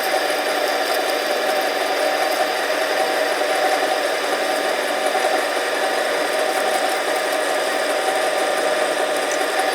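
Harbor Freight 7x10 mini lathe running steadily, its motor and drive whining and rattling at a constant speed with the spindle turning.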